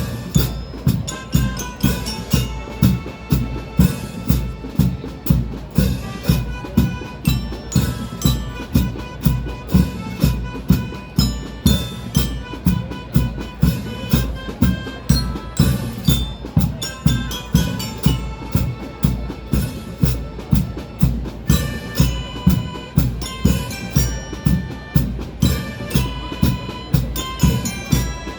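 School marching band playing, with a bass drum keeping a steady beat about twice a second under snare drums and a held melody.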